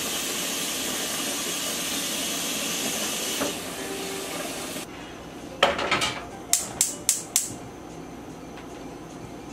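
Tap water running into a stainless steel pot at the sink, stopping about five seconds in. Then a clank as the pot goes onto the gas stove, and a quick run of sharp clicks as the burner is lit.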